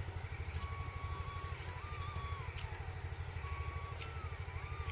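A small engine running steadily nearby: a low rumble with a fast, even pulse. A few faint whistle-like calls sound over it.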